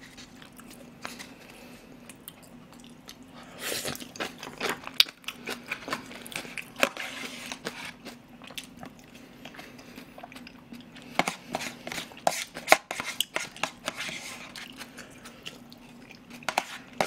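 Close-miked eating of rice porridge: chewing and wet mouth sounds, with irregular clicks and scrapes of a plastic spoon and chopsticks against plastic takeout containers. A faint steady hum runs underneath.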